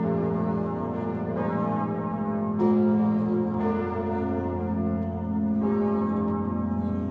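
The swinging bells of Notre-Dame de Paris rung together in full peal (plenum), heard close up inside the belfry. Overlapping strikes come roughly every second or two, each setting off a wash of ringing tones over the steady deep hum of the great bourdon bells.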